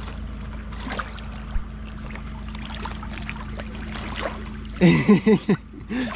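Icy water sloshing and trickling as a man sits immersed in a hole cut in lake ice, over a steady low hum. Near the end comes a short burst of loud shouts.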